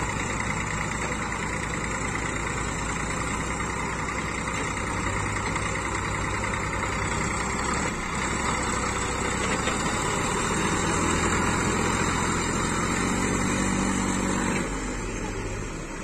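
Massey Ferguson 241 tractor's three-cylinder diesel engine running steadily under load as the tractor works out of deep paddy-field mud. It gets somewhat louder for a few seconds, then drops back near the end.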